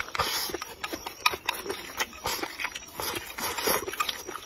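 Close-up eating sounds: chopsticks clicking and scraping against a bowl as rice and noodles are shoveled into the mouth, with chewing. The clicks and smacks come quickly and irregularly throughout.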